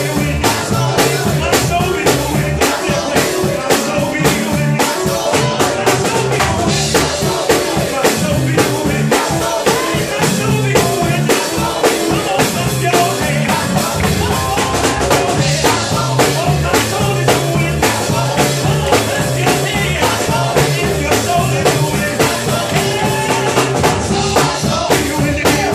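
Live gospel music: a male vocal group singing into microphones over a drum kit and band, with a steady drum beat.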